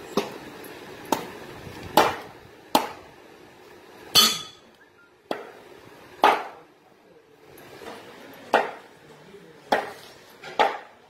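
A large curved chopping knife hacking raw green mangoes into pieces on a wooden block. About ten sharp chops come at irregular intervals, roughly one a second.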